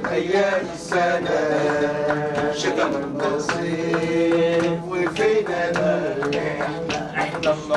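Men's voices singing a chant-like song with long held notes, over a string of sharp percussive beats.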